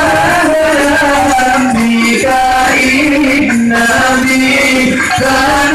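Devotional song for the Prophet's birthday: a voice singing long, held, ornamented notes over musical accompaniment.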